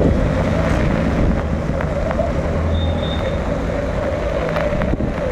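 Motor vehicles, scooters and auto-rickshaws, running as they drive through a flooded street, with a steady wash of water and a few short knocks.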